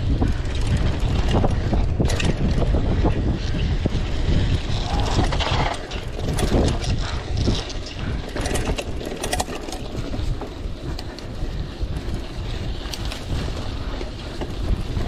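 Wind rushing over the microphone of a camera riding on a mountain bike, with the tyres rolling over a dirt and gravel trail. Frequent short rattles and knocks come from the bike jolting over bumps.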